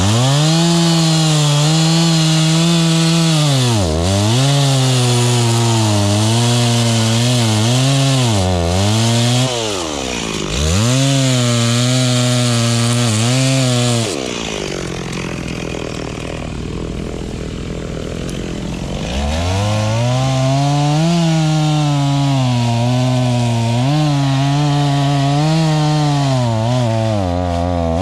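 Two-stroke chainsaw cutting into a grevillea trunk at high revs, its pitch sagging and recovering several times as the chain loads up in the wood. About halfway through it eases off for roughly five seconds, then revs up and cuts again.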